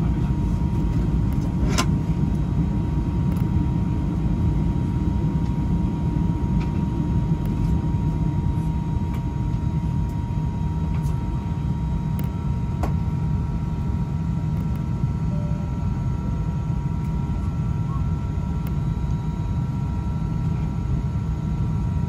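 Steady low rumble of an Airbus A320 cabin, with a thin steady whine above it. A second, slightly higher whine joins about halfway through, and there are a couple of faint clicks.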